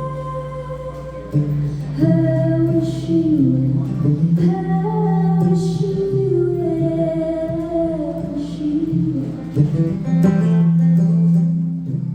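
Live acoustic guitar with a woman singing long held notes without words, in the closing bars of a slow song.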